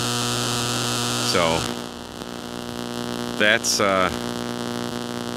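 Power-line interference buzz coming from the MFJ-852 AC line noise meter's speaker: a steady harsh buzz made of many evenly spaced tones, a little quieter after about two seconds as the meter is turned. It is the electrical noise that plagues the ham station, its source a nearby pole transformer or a grow light.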